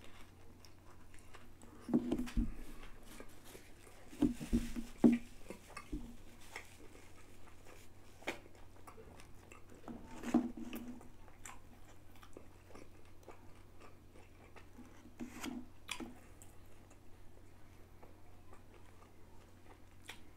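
A person chewing a bite of a KFC Zinger fried-chicken burger stuffed with chips, with soft crunching and wet mouth sounds. A few louder moments come about 2, 4 to 5 and 10 seconds in.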